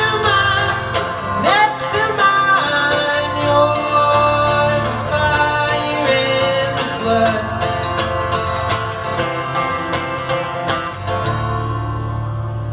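Strummed acoustic guitar with a man singing, live. The strumming stops about eleven seconds in and the last chord rings out.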